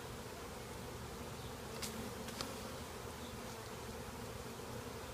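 A swarm of honeybees buzzing in a steady, intimidating hum as they are hived into a box of frames. Two brief sharp clicks come about two seconds in.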